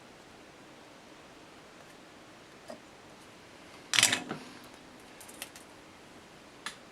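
Handling noise on a desk: faint steady hiss, a light click, then one loud clattering knock with a short ring about four seconds in, followed by a few lighter clicks.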